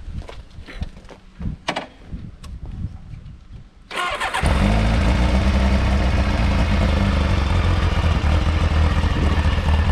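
Kawasaki ZXR 750 H2's inline-four engine started on the button about four seconds in: a brief crank, then it catches and runs steadily. Before that, a few light knocks.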